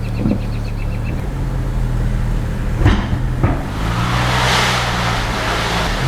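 Hand-tool work on a car's front suspension: a quick run of even clicks in the first second, two sharp knocks about three seconds in, then a rushing hiss near the end, all over a steady low hum.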